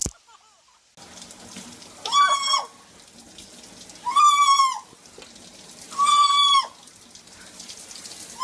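A bird giving a loud, steady-pitched call about every two seconds, four times, each call about half a second long and ending with a quick drop, over a faint steady hiss.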